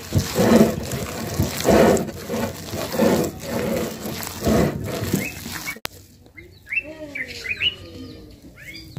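Hands squeezing and kneading a soft cassava-flour and banana dough in a glass bowl, a squelch about once a second, with birds chirping in the background. The kneading stops abruptly about six seconds in, leaving only chirping and lower falling bird calls.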